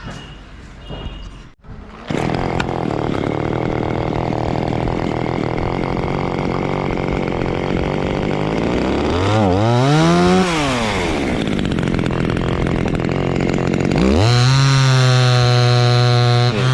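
Two-stroke chainsaw running: it idles, revs up and drops back once about halfway through, then is held at high revs near the end.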